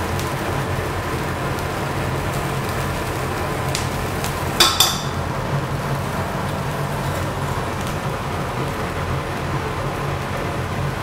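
Bone broth simmering in a wok on a gas burner, a steady bubbling hiss. About four and a half seconds in there is a sharp double clink of crockery.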